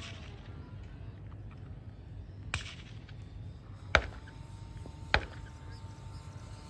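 Three sharp knocks, the middle one loudest, over a low steady hum, with a faint steady whine setting in about four seconds in.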